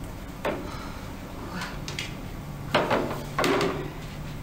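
Several short knocks and clatters spread across a few seconds, over a low steady hum.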